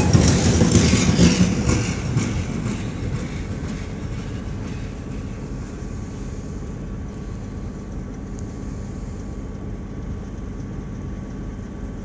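ChME3 shunting diesel locomotive passing close by and pulling away. Its six-cylinder diesel engine and running gear rumble loudest in the first two seconds, then fade to a steady, more distant engine hum as it moves off.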